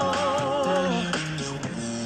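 A cappella pop music: several voices hold wavering sung harmonies over a sung bass line that steps from note to note, with no lyrics in this stretch.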